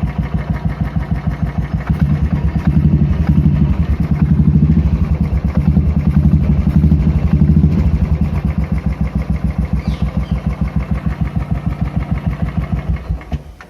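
Royal Enfield Classic 350's single-cylinder engine, fitted with a K&N high-flow air filter, running with an even thump. The revs rise for several seconds, settle back to idle, and the engine is switched off near the end.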